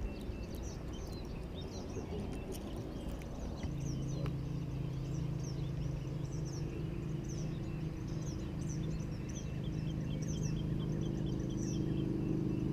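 Small birds chirping over and over in the background. A steady low hum starts about four seconds in and continues, and a short run of quick ticks comes about two thirds of the way through.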